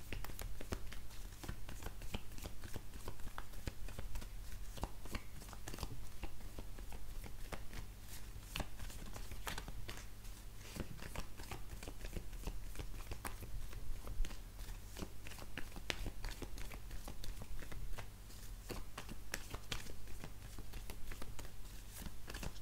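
Hands shuffling a deck of oracle cards: a continuous run of quick, light card clicks and slaps, over a steady low electrical hum.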